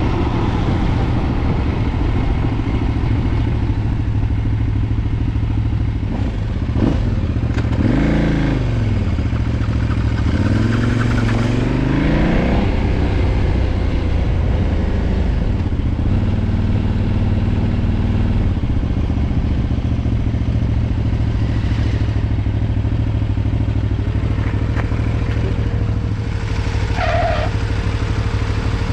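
2013 KTM 990's V-twin engine, heard through its stock exhaust, running at a steady low beat. The revs rise and fall twice in the first half, like throttle blips, and settle back to the steady beat. A thin steady whine joins near the end.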